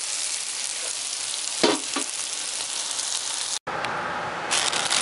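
Chopped green bell pepper, celery and green onion sizzling as they sauté in a skillet, a steady hiss. It cuts off suddenly about three and a half seconds in.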